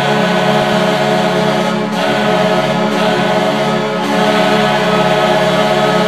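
The San Antonio Rampage's goal horn (2014 to present) sounding one long, steady multi-tone blast.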